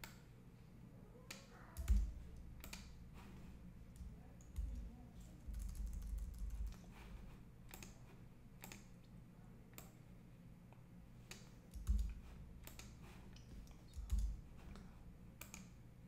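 Scattered computer mouse clicks and keyboard key presses, with a few dull thumps (the loudest about 2 s and 12 s in) over a faint steady hum.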